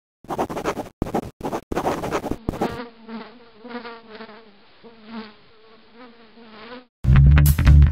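Pencil scribbling on paper in a few quick strokes, then a wavering insect-like buzz lasting about four seconds; loud music with a heavy bass line starts near the end.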